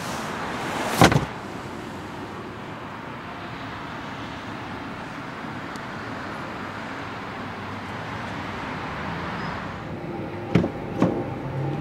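A folded rear seatback of a Mercedes E63 wagon pushed back up and latching into place with one loud thump about a second in, followed by steady background traffic noise; two short knocks come near the end.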